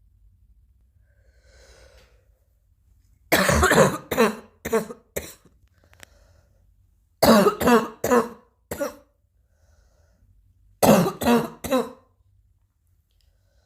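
Three bouts of coughing about four seconds apart, each a quick run of three to five harsh coughs, with a faint breath before the first bout.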